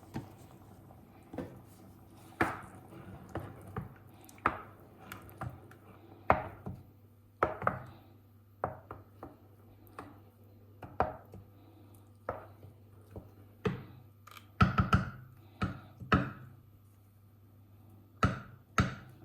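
Irregular sharp knocks and clacks of a kitchen utensil against a pot as cream is worked into the soup, about one every second, over a faint steady low hum.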